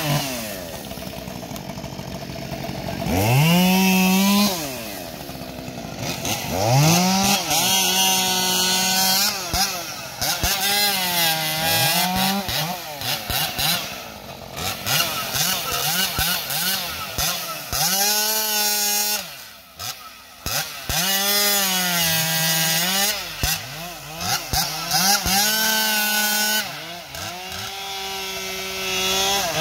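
Two-stroke gas chainsaw bucking logs. It revs up to full speed again and again, holds there as it cuts through the wood, then drops back to idle between cuts.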